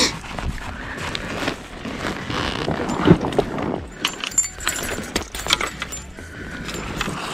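Fishing tackle being handled on a float tube: irregular clinks, knocks and rustles of rods, reels and metal-bladed lures against the frame and its mesh pockets.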